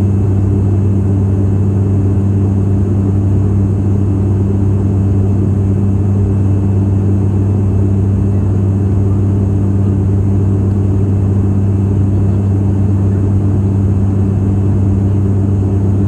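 Turboprop airliner's engine and propeller running steadily in flight, heard inside the cabin: a loud, even low drone with a strong humming tone and its overtones over a rumble.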